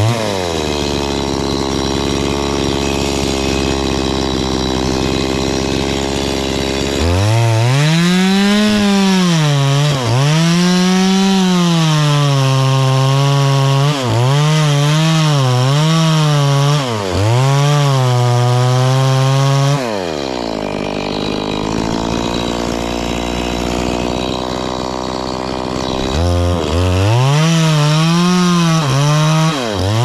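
Stihl chainsaw cutting through the trunk of an anjili tree: the two-stroke engine runs at a lower steady speed, revs up about seven seconds in and bogs and recovers repeatedly as the chain bites into the wood, drops back about twenty seconds in, and revs hard into the cut again near the end.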